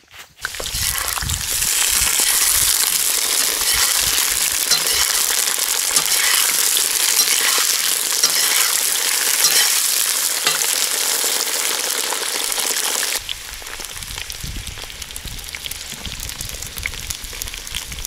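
Young potato wedges sizzling as they fry in hot fat in a cast-iron kazan, a loud, steady hiss that drops abruptly to a quieter sizzle about thirteen seconds in.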